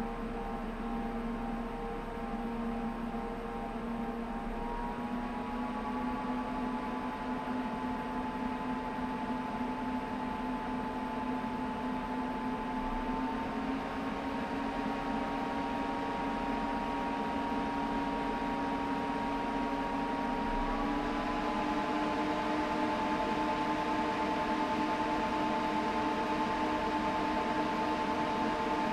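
Corsair H100i liquid cooler's PWM radiator fans running with a steady whirring hum and several steady tones. The fan speed is stepped up three times, about five, thirteen and twenty-one seconds in, each step raising the pitch of the tones a little and the whole sound getting slightly louder.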